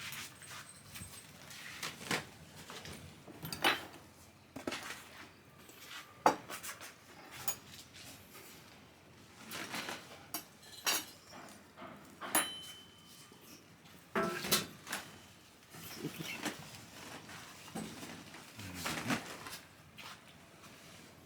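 Scattered clinks and clatters of dishes and cutlery being handled, irregular and sharp, some with a brief ring.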